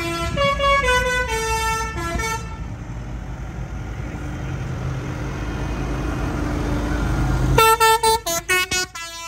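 A tune played on a vehicle's musical horn, note by note, for about the first two seconds. A decorated tractor's engine then runs steadily as it drives past. Near the end comes an abrupt burst of loud, choppy horn notes.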